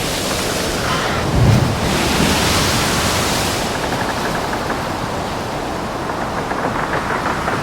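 Heavy sea around a ship: steady wash of waves and wind, with a low thud about a second and a half in as a wave strikes.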